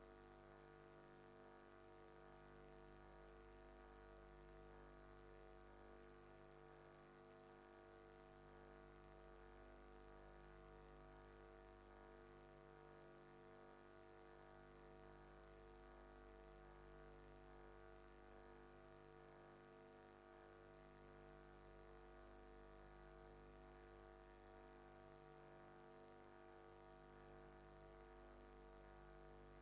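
Near silence: a faint, steady electrical hum, with no other sound.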